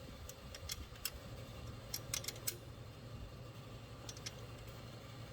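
Sharp metallic clicks and clinks of a hand wrench working on the alternator mounting bolts, in a few irregular clusters, over a faint steady hum.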